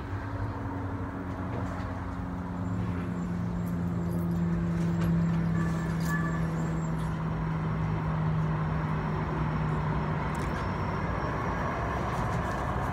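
A motor vehicle's engine running, a steady low hum that sinks slightly in pitch and stops about ten seconds in, over a haze of street traffic noise.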